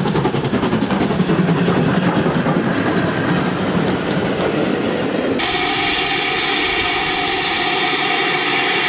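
GWR 2800 class 2-8-0 steam locomotive and its coaches passing at speed, with a rapid rhythmic clatter. About five seconds in, the sound cuts abruptly to a steady rushing noise.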